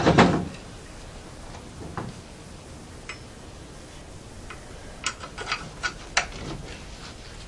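A two-pood cast-iron kettlebell set down with a thud on the front of a walk-behind tractor's frame as a counterweight. A few light metal clicks follow, then a quick cluster of clinks about five to six seconds in as a steel pin is slid through its handle to lock it on.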